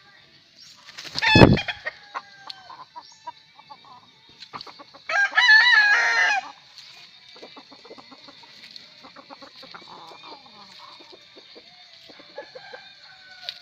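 Gamecocks and hens on a gamefowl farm: one rooster crows once, loudly, about five seconds in, for just over a second, amid scattered clucking. A loud short sound with a deep thud comes a little over a second in.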